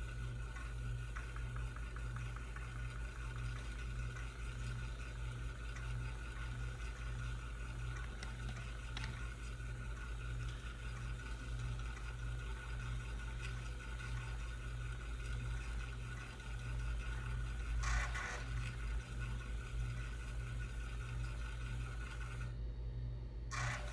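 IBM 5150 running, its 5.25-inch floppy drive reading files as they are copied to the hard drive, over a steady pulsing hum. A thin steady whine stops near the end.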